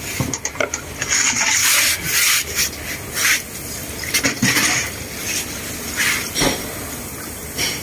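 A plastic jerrycan being tipped and handled against a plastic bowl and a machine's tank: a run of irregular scrapes and rubs with a few light knocks.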